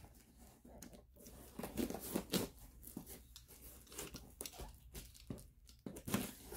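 Folding knife slicing through clear packing tape on a cardboard box, with irregular scraping, tearing and crinkling strokes as the tape and cardboard are cut and pulled apart.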